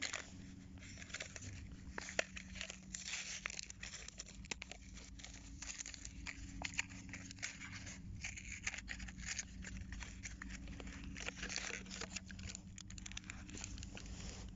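Clear plastic blister packs of two fishing spoon lures being torn open and peeled apart by hand: a continuous run of crackling and crinkling.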